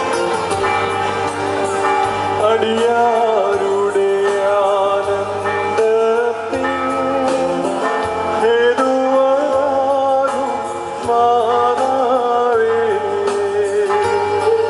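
Music: a singer with instrumental accompaniment, the melody wavering and gliding over steady held notes.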